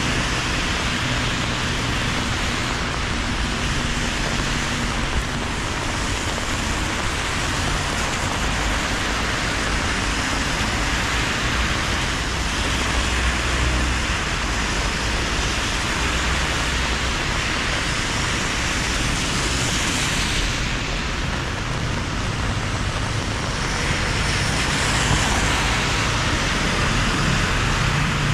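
Steady rain hiss with car tyres swishing on the wet road and engines rumbling low as traffic passes. The traffic swells near the end as a box truck drives by.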